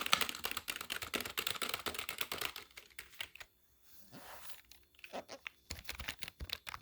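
Keys of a brand-new Corsair K55 RGB Pro membrane keyboard being typed on: a rapid flurry of key clicks that stops for about two seconds midway, then picks up again with scattered presses.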